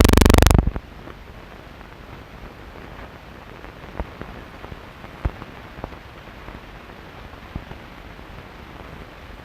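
Old cine film soundtrack: a loud buzzing tone cuts off suddenly about half a second in, leaving a steady hiss with scattered clicks and pops.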